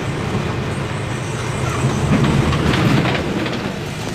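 Volkswagen 17.230 OD bus running, a steady low engine drone with light rattles, swelling louder for about a second in the middle.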